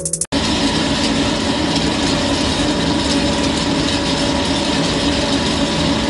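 Ring-die pellet mill running: steady, dense machine noise with a constant hum. It starts abruptly about a third of a second in.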